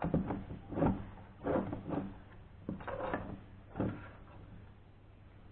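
Hands handling the plastic case of an XM-18 incubator controller, turning it over and setting it down: a string of short knocks and clatters over the first four seconds, then quieter.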